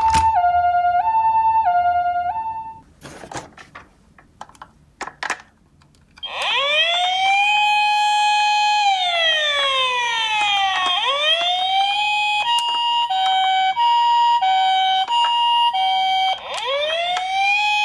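Electronic sirens of toy ambulance minicars. A two-tone high-low siren stops after nearly three seconds, followed by a few seconds of small clicks and rattles. Then a wailing siren rising and falling slowly, a faster alternating two-tone, and the wail again near the end.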